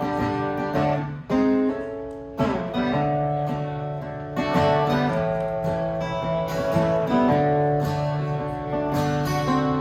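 Acoustic guitar strummed in an instrumental passage of a country song after the last sung line, with chords changing and a brief drop about a second in before the strumming picks up again.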